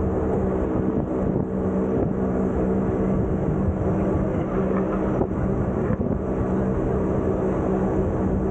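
Electric rack-and-pinion mountain train running at a steady pace, a constant drone of motors and gearing over the rumble of the wheels.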